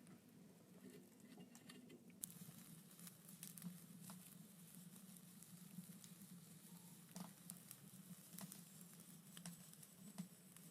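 Faint, sparse clicks and ticks at irregular intervals over a low steady hum, close to silence.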